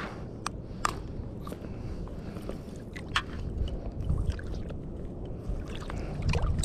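Water sloshing and wind on the microphone, with several sharp clicks and taps from tackle being handled while a speckled trout is unhooked.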